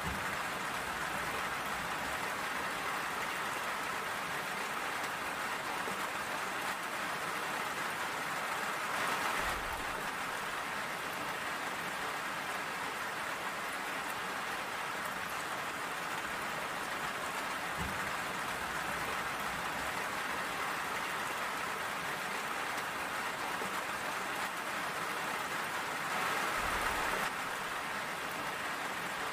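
Steady rain falling, an even hiss of drops on surfaces, swelling briefly louder twice: about nine seconds in and again near the end.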